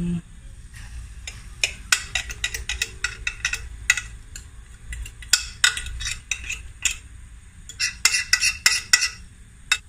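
Spoon scraping and clinking against a glass dish as thick egg batter is scraped out into a hot frying pan. The scraping comes in quick runs of clicks, three times.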